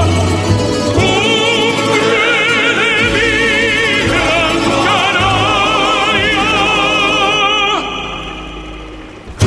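Background music: operatic singing with a wide vibrato, fading out over the last two seconds.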